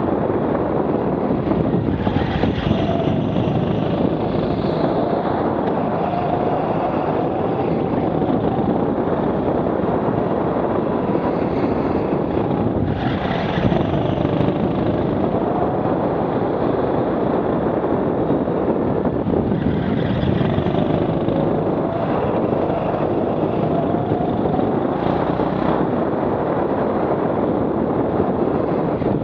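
Rental go-kart engine running at speed, its pitch rising and falling as the kart accelerates out of corners and lifts off for them, over a steady rushing noise.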